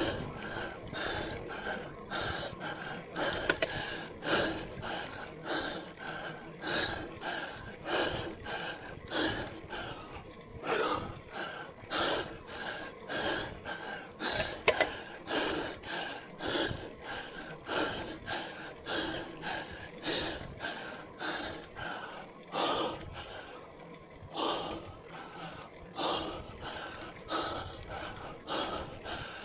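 Cyclist's heavy, rhythmic breathing, quick hard breaths about one to two a second, from the effort of climbing a steep road on a bicycle.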